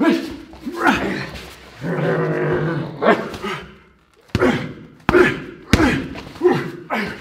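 Two men growling and yelling as they drill headbutts and knees into focus mitts, with sharp smacks of strikes landing on the pads several times and one long drawn-out roar.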